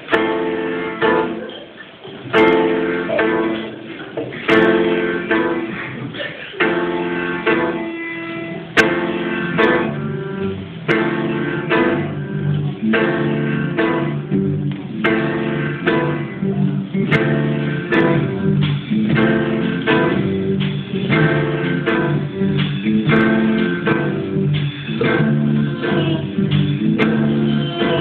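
Live band playing a song, with guitars to the fore.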